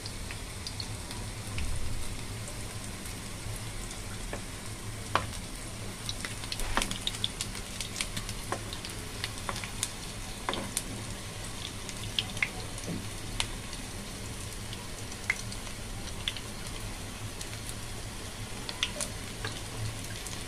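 Potato-and-chicken tikki patties shallow-frying in hot oil in a nonstick pan: a steady sizzle dotted with scattered sharp pops and crackles.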